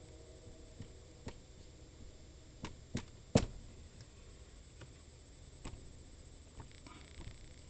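Faint, scattered clicks of a computer mouse's buttons as letters are drawn and menus are selected with it, about a dozen light ticks at uneven intervals, the loudest a little over three seconds in.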